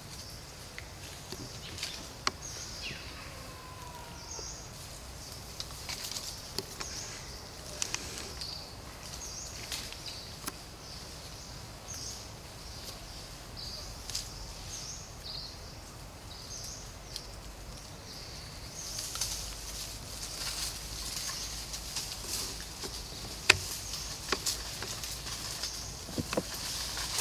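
Forest ambience: short high-pitched chirps repeating about once a second, with scattered small clicks and rustles of twigs and leaves and one sharper crack near the end.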